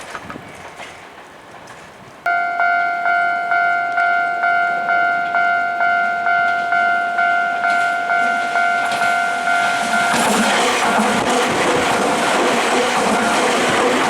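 Japanese level crossing alarm starting about two seconds in, an electronic bell striking about twice a second. Some eight seconds later a Nankai Koya Line electric train runs over the crossing, its noise loud enough to all but cover the bell.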